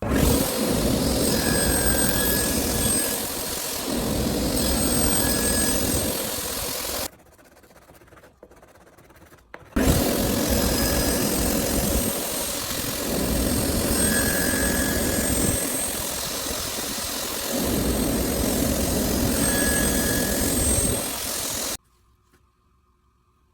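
Woodworking power tool running and cutting wood, its sound swelling and easing every couple of seconds as the work goes on. It cuts off abruptly about seven seconds in, starts again about ten seconds in, and stops sharply near the end.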